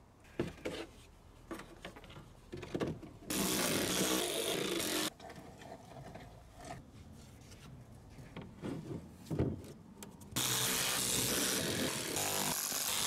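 Power tool running in two bursts, one of about two seconds and one of nearly four, driving the fixings of the plastic underbody cover back in, with clicks and knocks from handling the panel between.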